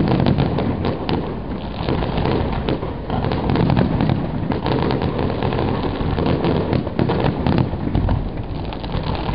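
Professional fireworks display: a rapid, continuous barrage of firework bursts and crackling, with many sharp bangs and pops overlapping.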